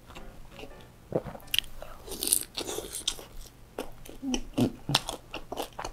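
Close-miked eating: crisp, crunchy bites into a fried piece of food and the chewing that follows, with many short sharp crackles.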